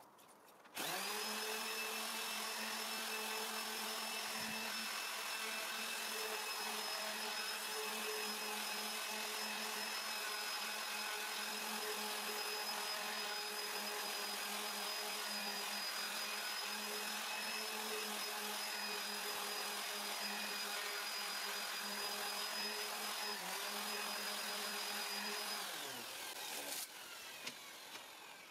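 Hand-held electric disc sander switched on and running steadily while wet-sanding a cured epoxy resin and walnut surface with fine-grit abrasive discs. Near the end it is switched off and winds down with a falling pitch.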